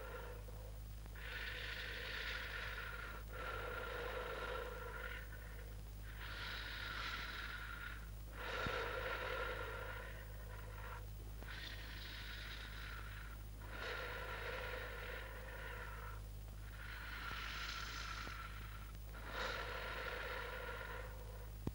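Slow, heavy human breathing, long hoarse breaths in and out about one every two seconds, over a steady low electrical hum.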